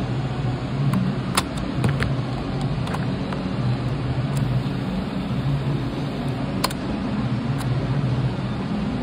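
A steady low hum with a few sharp plastic clicks as the keys of a RadioShack CTR-121 cassette recorder are pressed and handled.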